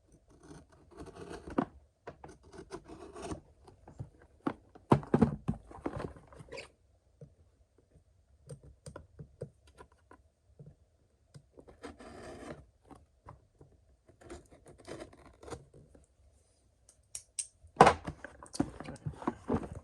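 A Sencut Watauga pocketknife slicing packing tape on a cardboard box: scraping, scratching and tearing of tape and cardboard in irregular bursts, with short pauses, and a sharper, louder rip near the end.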